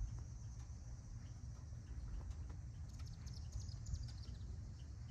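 Outdoor handheld recording: a steady low rumble on the microphone with soft footsteps on pavement, and a quick run of high chirps about three seconds in.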